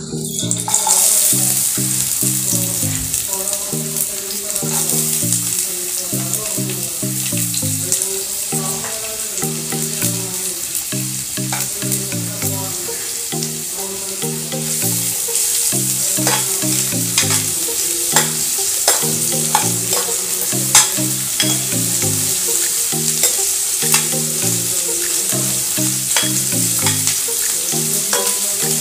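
Chopped onions sizzling as they fry in hot oil in a kadhai, starting about a second in, with a spoon stirring and clicking against the pan. Soft background music plays underneath.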